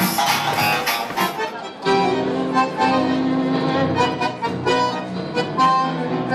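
Music: one piece breaks off about two seconds in and another starts, led by an accordion-type squeezebox playing long held notes.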